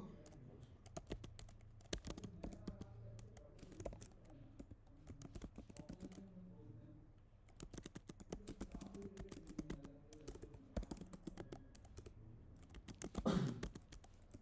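Typing on a computer keyboard: a fast run of key clicks, with a pause of about a second and a half in the middle. Near the end there is a brief louder voice sound.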